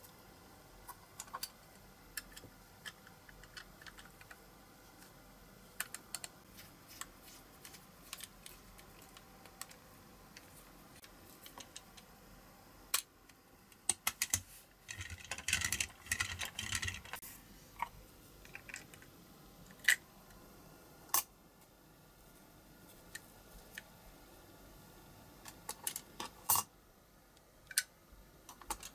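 Light clicks and taps of small diecast toy-car parts being handled and fitted together. There is a busier run of rattling clicks about halfway through and a few sharper single clicks after it.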